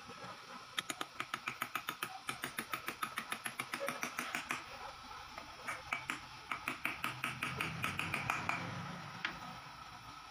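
Small ball-peen hammer tapping quickly on a steel bearing seated in a Kawasaki KLX150 suspension linkage, driving the ball bearing into its bore. Two runs of quick light taps, about five a second, with a short break in the middle and one last tap near the end.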